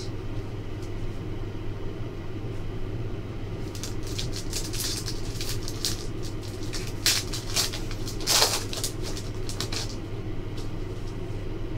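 A foil trading-card pack wrapper crinkling and being torn open by hand: bursts of sharp crackles from about four seconds in, the strongest near eight and a half seconds, over a steady low hum.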